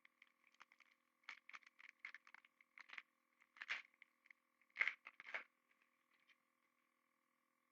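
Hockey trading cards and pack wrapping being handled: a run of light rustles and clicks, loudest twice in the middle, that stops about six seconds in. A faint steady high hum runs underneath.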